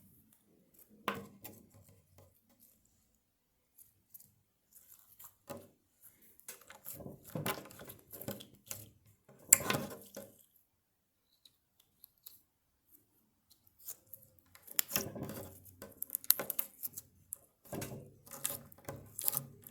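Slime being squeezed and worked by hand: bursts of small sticky clicks, pops and crackles, with quiet pauses between the handfuls.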